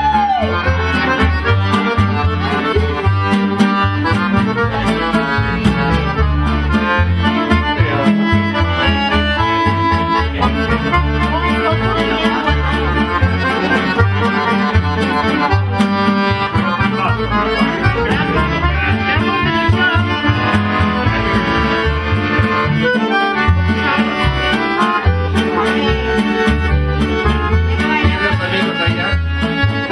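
Accordion-led music with a steady, regular bass beat.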